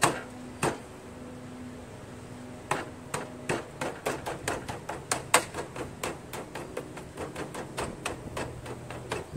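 Sharp taps of a hand on the John Deere L100 lawn tractor's fender as a decal is pressed back into place. Two taps come at the start, then after a short pause a quick run of several taps a second that lasts until near the end.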